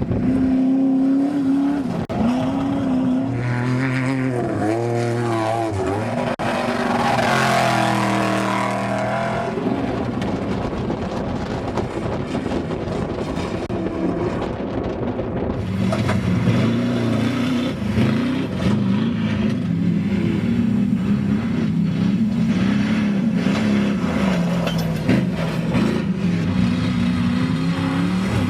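Off-road desert race trucks running hard, their engines rising and falling in pitch as they rev and shift. One passes close about seven to nine seconds in.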